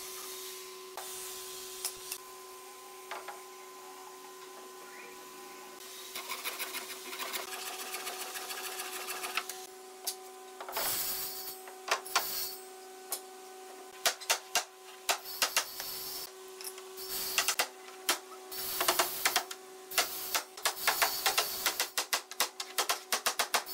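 Hammer tapping on a wooden cabinet top, fast and uneven, starting about ten seconds in, over a steady hum.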